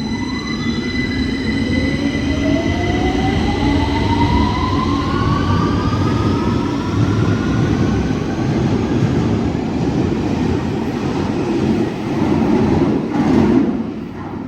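London Underground 2009 Stock train departing: the traction motors' whine rises steadily in pitch, in several tones at once, as it accelerates, over a heavy rumble of wheels on track. The rumble grows louder near the end.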